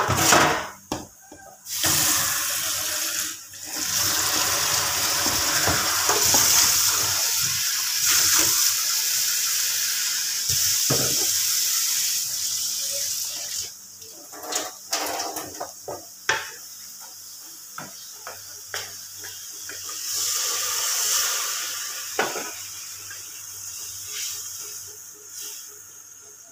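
Kitchen tap running hard into a stainless-steel sink as a wooden spatula is rinsed under the stream, for about ten seconds before it is shut off. A few short knocks follow.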